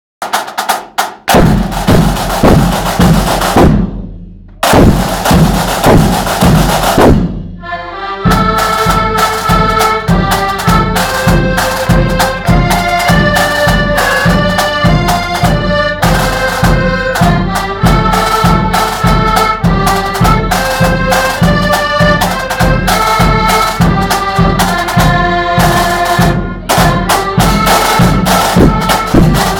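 Accordion band with snare and bass drums: the drums play alone for about eight seconds, then the accordions come in with a marching tune over a steady drum beat.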